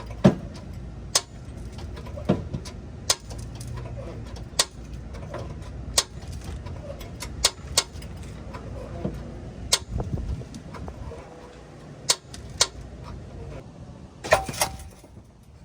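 Hydraulic floor jack being pumped to lift a car: a sharp metallic click about every second or so, with a quick cluster of clanks near the end.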